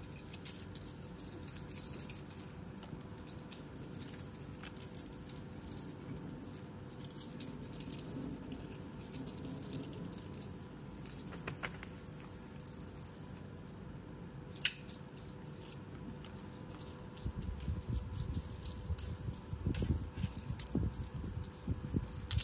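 Light clicking, rattling and pattering as cats and kittens scramble over dirt after a feather wand toy. One sharp click comes about two-thirds of the way through, and low thumps and rustling pick up in the last few seconds.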